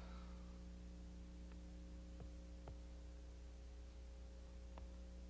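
Near silence: a low, steady electrical hum with faint hiss, broken by a few faint ticks.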